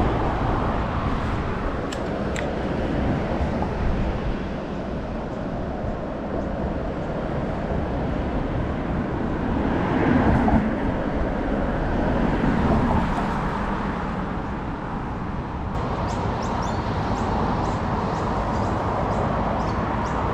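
Road traffic crossing a concrete bridge: steady tyre and engine noise, with one vehicle passing louder about ten seconds in.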